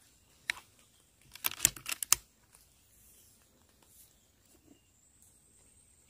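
Air rifle being handled: a faint click about half a second in, then a quick cluster of sharp metallic clicks a second later, as the rifle's action is worked.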